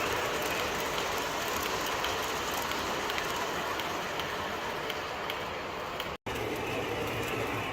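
MTH O-scale R-40 Slant subway model train running on three-rail track: a steady rolling rumble with faint scattered clicks. The sound drops out completely for a moment about six seconds in.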